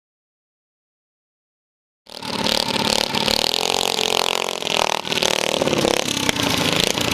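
Silence, then about two seconds in a racing lawnmower's engine cuts in, running loud and revving up and down.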